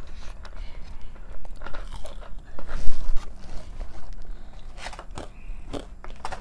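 Close-up chewing and crunching of fried chicken fingers, with scattered small clicks and a louder burst of noise about three seconds in.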